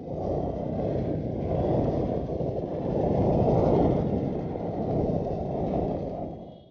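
Royal Enfield Continental GT motorcycle riding at highway speed, heard from a helmet-mounted camera: a dense, steady rush of wind over the microphone with the engine running under it. It starts suddenly and fades out near the end.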